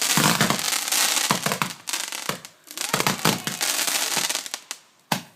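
A firework going off in a dense run of rapid crackles and pops, with short pauses about two and a half and five seconds in.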